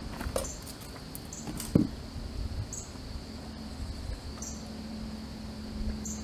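Water bubbling and popping around a hot perforated steel casting flask quenched in a wheelbarrow of water as its plaster investment breaks up, with scattered small clicks and one louder thump about two seconds in. A steady high insect drone runs underneath.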